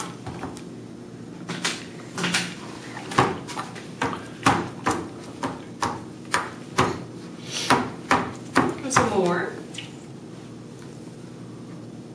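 Baby slapping his hands on a plastic high-chair tray: a run of sharp slaps, roughly two a second, that stops about nine and a half seconds in. A short vocal sound comes near the end.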